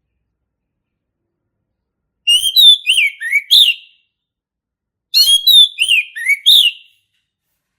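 Male orange-headed thrush singing: two short phrases of quick, sliding whistled notes, the first about two seconds in and the second about five seconds in.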